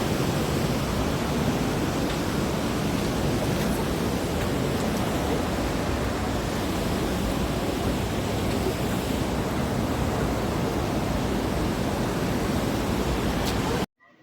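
Waterfall water rushing in a loud, steady noise with no breaks, cutting off suddenly near the end.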